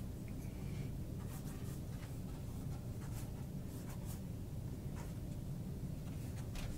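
Faint, irregular strokes of a paintbrush brushing paint onto a stretched canvas, over a steady low room hum.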